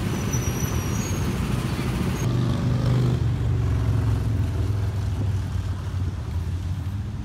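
Road traffic: a motor vehicle passing, its engine note falling in pitch about three seconds in, over a steady low rumble.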